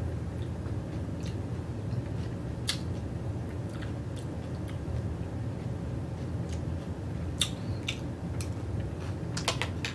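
Person chewing a mouthful of nachos (tortilla chips under toppings), with scattered short crunchy clicks and a quick cluster of them near the end, over a steady low hum.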